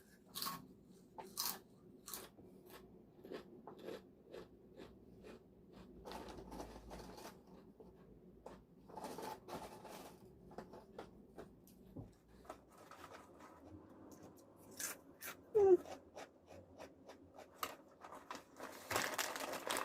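Crisp, spicy balado-flavoured chips bitten and chewed close to the microphone, with a sharp crunch every second or so.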